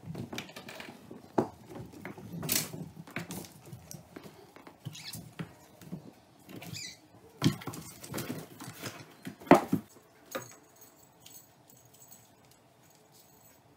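Kittens scampering and wrestling on a hardwood floor and in a cardboard box: paws pattering and skittering, scratching, and irregular knocks and thumps. The loudest knock comes about nine and a half seconds in, and it goes quiet after about ten seconds.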